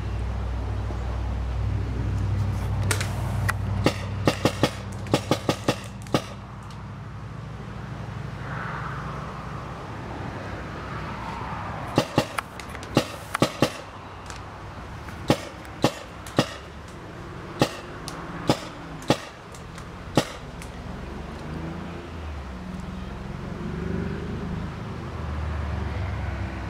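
Paintball markers firing: a rapid string of about ten sharp pops a few seconds in, another quick volley around the middle, then single shots every second or so, over a low steady rumble.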